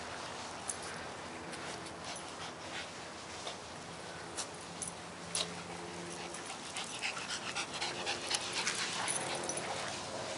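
Small white terriers playing chase: dog panting with many quick clicks of claws and paws on concrete, growing thicker and busier about two-thirds of the way through.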